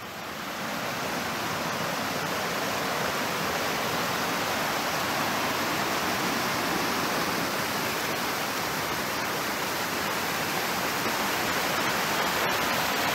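Rushing white water of the lower Montreal Falls cascading over rock ledges: a steady, even rush that swells in over the first second and then holds.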